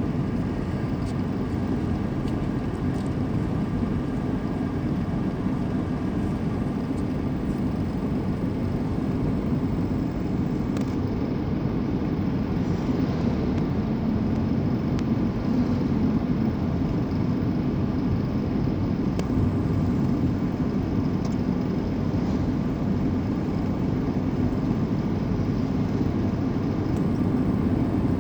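Steady engine and road noise from a vehicle travelling along a cement road.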